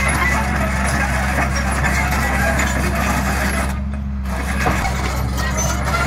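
Hydraulic excavator's diesel engine running steadily under load, with a dense clatter of mechanical noise over it that drops away briefly about four seconds in.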